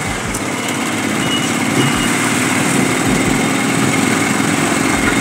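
Small engine of an auto-rickshaw (tuk-tuk) running steadily under way, heard from the passenger seat under its open canopy, with road and traffic noise; it grows a little louder about two seconds in.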